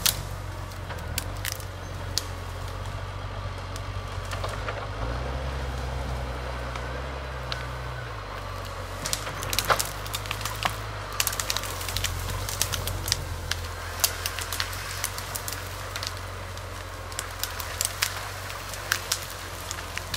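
Forestry tractor's diesel engine running steadily, its pitch rising for about three seconds near the middle, while branches and brush crack and snap repeatedly under the machine.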